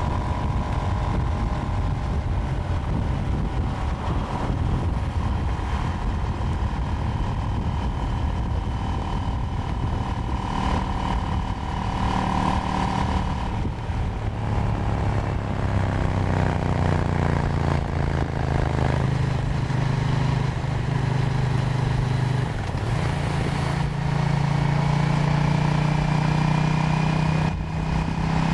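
KTM Duke 790's parallel-twin engine running under way on the road, with a low wind rush. The revs fall about halfway through, then hold steady, with a short step in pitch about three-quarters of the way in, as at a gear change.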